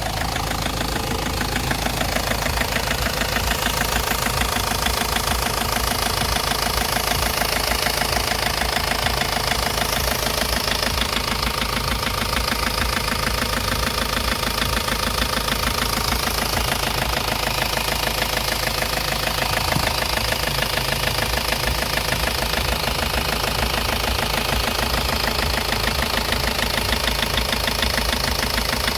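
Ford Focus Mk1 1.8 TDDi four-cylinder diesel engine idling steadily with a fast, even knocking.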